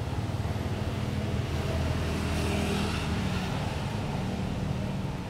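Steady low engine hum of a motor vehicle, growing a little louder about two seconds in and easing off again.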